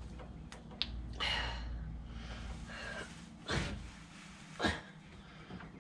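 A man breathing hard and huffing in short breaths and sighs while straining at an awkward job, with a sharp click of a part being handled about a second in.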